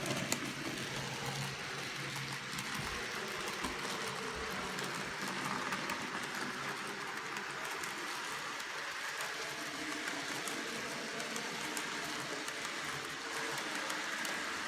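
N gauge model train running at speed around curved track: a steady whirring of the small locomotive and its wheels on the rails, with faint light ticks.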